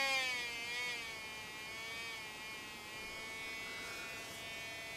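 Homemade astable-multivibrator beeper driving an 8-ohm loudspeaker through a BD139 Darlington, running on only about 0.8 volt: a buzzy tone, not very fierce, whose pitch wobbles for about the first second, then holds steady as it eases a little in loudness.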